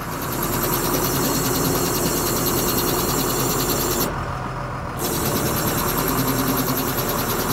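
Bean pump on a DeepRock DR-150 drill rig running, a fast even mechanical clatter over the rig's idling engine. It stops for about a second midway and then starts again.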